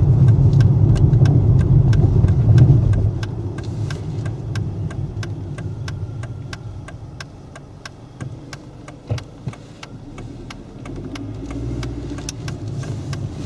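Road and engine noise of a car driving, heard from inside the cabin: loud for the first three seconds, then dropping to a lower level as the car slows. A fast, even ticking runs through it.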